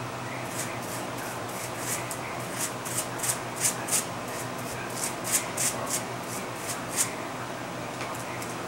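Tint brush stroking pink hair dye through a strand of hair laid over a sheet of packing material: a run of short brushing swishes, about three a second, that stop a little before the end.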